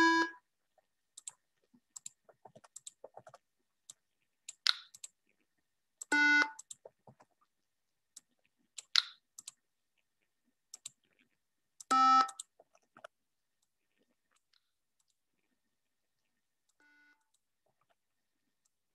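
Short electronic preview beeps from the micro:bit MakeCode editor's piano note picker: three single notes about six seconds apart, each a step lower than the last (E, D, C), then a faint fourth one near the end. Mouse and keyboard clicks come in between, a few of them louder.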